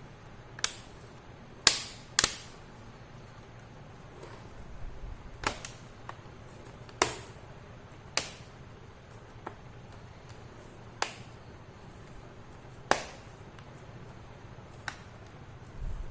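Plastic laptop back cover clicking as it is pressed onto the chassis: about ten sharp, separate snaps at uneven intervals, the loudest near the start.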